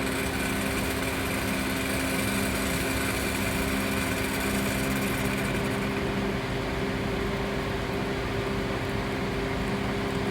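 Sage espresso machine's water pump running steadily while it pulls a single shot: a constant hum with a higher hiss over it that drops away about six seconds in. The machine is working normally after a pump repair.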